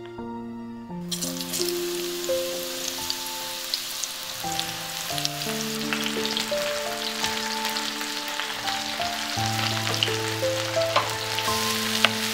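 Sliced button mushrooms sizzling in a hot frying pan, with scattered crackling pops. The sizzle starts about a second in, over soft piano music.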